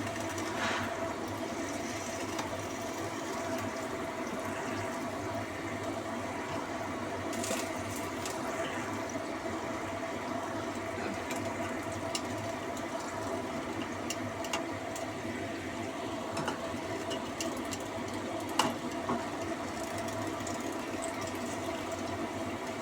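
Vegetables boiling in a covered pot on the stove over a steady hum, with a few faint clicks.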